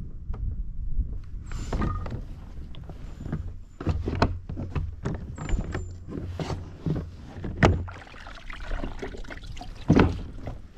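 Low, steady rumble of a Hobie sea kayak's pedal foot drive, broken by irregular knocks and clicks, the loudest about two-thirds of the way in and near the end, and a few brief high squeaks.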